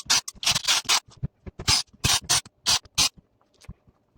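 A 12 V cordless drill-driver run in short bursts to back the screws out of an identical drill-driver's plastic housing. About three seconds in the bursts stop, leaving only a few light clicks from handling the screws and housing.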